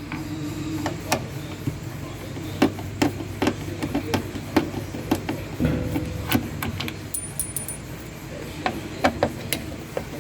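Irregular sharp clicks and taps of screws and a nut driver being handled while the drain pump is unscrewed from under a top-load washer, over a steady low hum.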